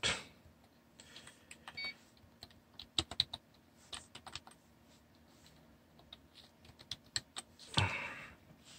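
Computer keyboard keys pressed slowly, one at a time, as a short terminal command is typed one-handed: scattered single clicks with uneven gaps, ending with the Enter key. A short rush of noise comes near the end.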